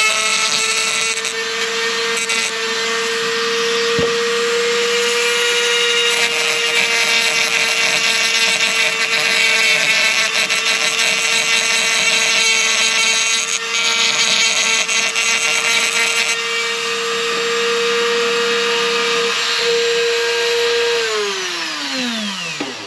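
Dremel rotary tool running at a steady high-speed whine while grinding rust off the steel window frame under the rubber seal, the grinding noise rising and falling as it bites. About two seconds before the end it is switched off and the whine falls in pitch as it spins down.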